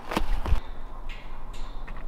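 Two footsteps crunching on snow-crusted ground, close together in the first half-second, over a steady low rumble.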